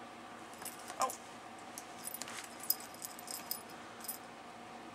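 Two cats play-fighting: light jingling and clinking, typical of a collar, at scattered moments, and a short falling squeak from one of the cats about a second in.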